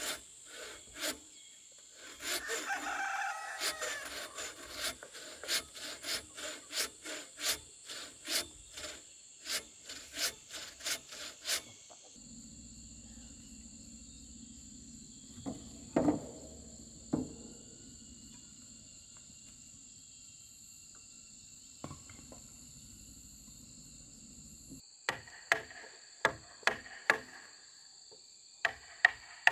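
Frame saw cutting through a wooden beam in steady back-and-forth strokes, about two a second, for the first twelve seconds, with a rooster crowing over it a couple of seconds in. Near the end, a wooden mallet knocks a chisel into a log in a run of sharp blows. Insects buzz steadily throughout.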